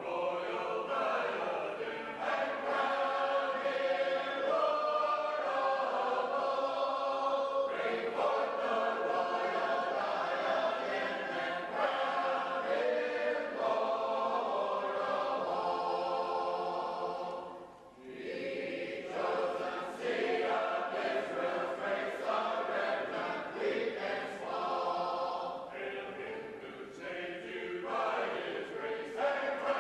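A large group of voices singing a shape-note hymn a cappella in four-part harmony, with a short break a little past halfway before the singing resumes.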